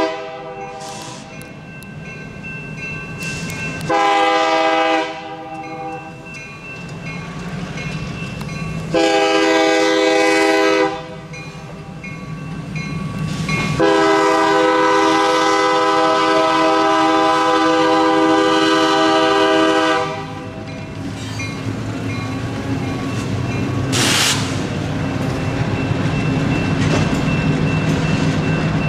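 Union Pacific freight locomotive's horn sounding three blasts at a grade crossing: a short one, a longer one, then a long one of about six seconds. Under the horn, the crossing's GS Type 2 electronic bell rings steadily. After the horn stops, the boxcars roll through with a steady rumble and clatter of wheels.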